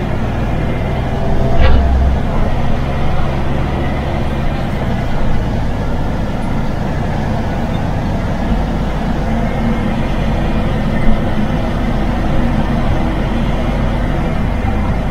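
MAN TGX truck's diesel engine running steadily while driving, with tyre and road noise. There is a short sharp knock about a second and a half in.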